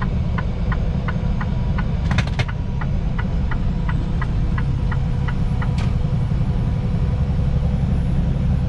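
Semi-truck cab interior at highway speed: a steady low rumble of engine and road. Over it a rapid, even ticking, about three ticks a second, stops about five seconds in, with a few sharper clicks around two seconds in.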